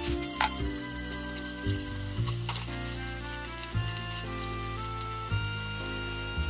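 Broccoli, shrimp and potatoes sizzling in a frying pan as they are stirred with a wooden spatula, with a couple of sharp taps of the spatula against the pan. Background music plays throughout.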